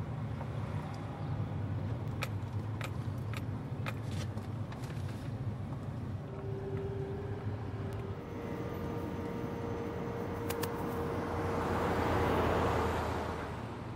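Ford pickup truck driving, a steady low rumble of engine and road noise from inside the cab, with a few light ticks in the first few seconds. About eleven seconds in, a louder rush of engine and tyre noise swells and fades as the truck goes by.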